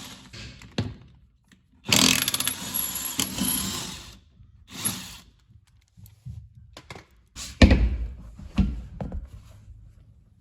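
Power impact wrench firing in bursts as it spins off wheel lug bolts. A heavy thunk comes about three-quarters of the way through, with lighter knocks around it.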